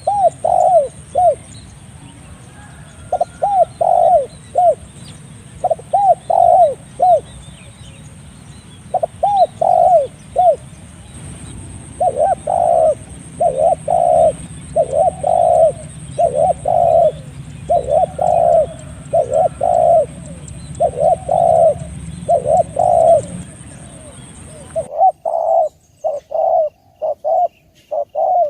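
Spotted dove (tekukur) cooing: repeated phrases of three or four soft coo notes, one phrase every second or two. The background hiss drops away near the end while the cooing continues.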